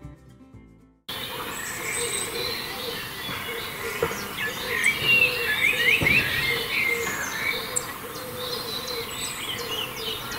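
Several small birds chirping and twittering over steady background noise. Background music trails off and cuts out about a second in.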